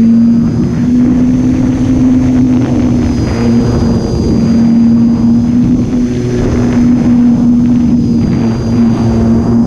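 Solar-powered model airplane's electric motor and propeller running in flight, heard from on board as a steady drone, with air rushing past the airframe.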